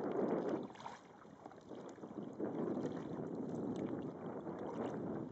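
Water sloshing and splashing against the hull of a canoe under way, coming in surges with a quieter lull from about one to two and a half seconds in.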